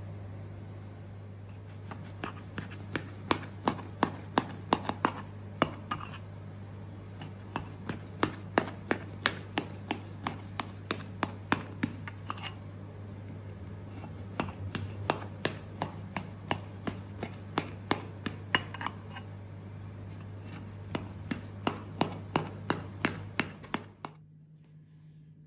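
A knife cutting a baked orange cake in a metal cake pan, the blade clicking sharply against the pan two or three times a second over a steady low hum. The clicking and hum stop abruptly near the end.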